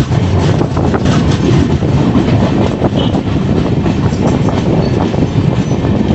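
Konkan Railway train running along the track: a steady, loud rumble of wheels on rails.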